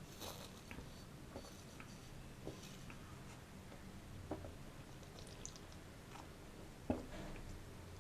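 Close-miked fruit eating: soft chewing and wet mouth sounds with scattered small clicks, the loudest click a little before the end.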